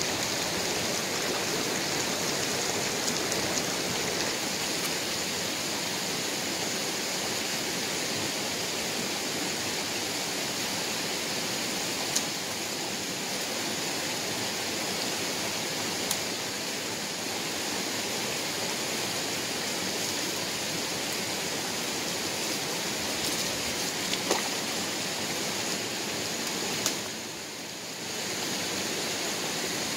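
Shallow rocky stream flowing with a steady rushing sound, with a few sharp clicks scattered through it. The rush drops off briefly near the end.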